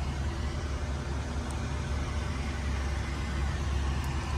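Chevrolet Suburban's engine idling, a steady low hum heard inside the cabin.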